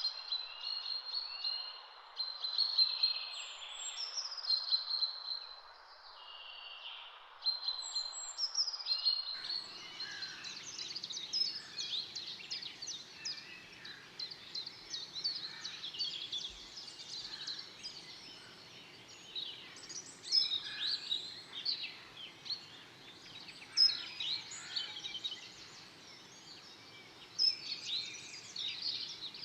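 Wild songbirds singing. At first a bird repeats a short song phrase over a steady hiss. About a third of the way in, the sound changes abruptly to a busier chorus of many birds chirping.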